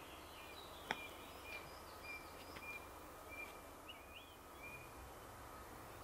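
Small birds chirping in short, high, thin notes over a steady low rumble of distant construction machinery, with one sharp click about a second in.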